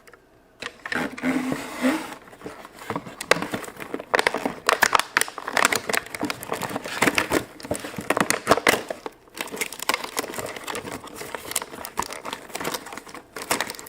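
Toy packaging being unwrapped by hand: irregular crinkling and rustling that starts about half a second in, with brief pauses twice.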